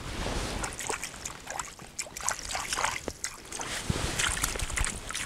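Water sloshing and lapping close by, with irregular small knocks and clicks.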